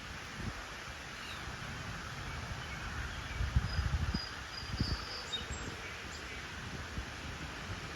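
Outdoor ambience: a steady hiss with a few faint, short, high bird chirps past the middle, and low rumbling bumps around the middle.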